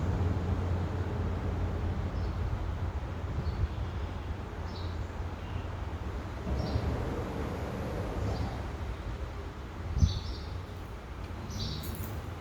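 Steady low outdoor rumble, with short high bird chirps scattered through it and a single thump about ten seconds in.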